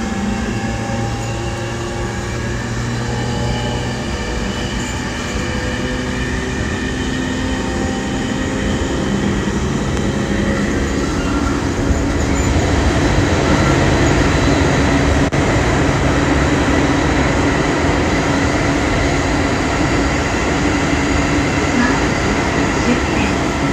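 Running sound heard inside the car of a JR Musashino Line electric commuter train: wheels rumbling on the rails under a whine from the drive equipment, whose tones fall slowly in pitch over the first half. About halfway through the running noise grows louder and steadier.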